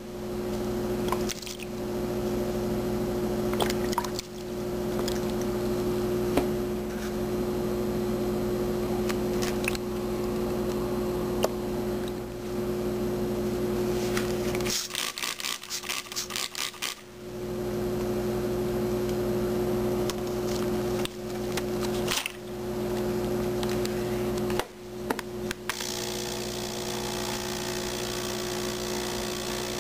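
Ultrasonic cleaner running with a steady electrical buzz. The buzz cuts out briefly several times and stutters on and off for a couple of seconds about halfway through. Near the end it gives way to a hissier sound.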